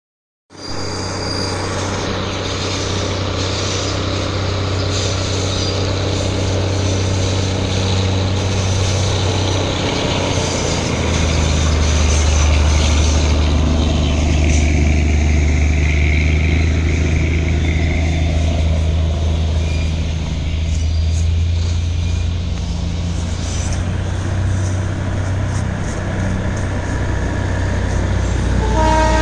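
Vehicle engine running, a steady low rumble that grows louder about eleven seconds in.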